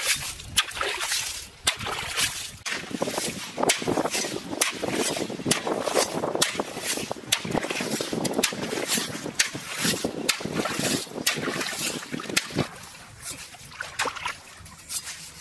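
Hoe chopping and scraping into wet river sand and gravel: repeated sharp, irregular strikes with wet splatter, getting quieter for the last few seconds.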